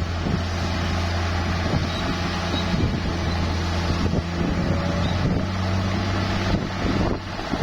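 Bulldozer's diesel engine running steadily at work, with a brief dip in level near the end.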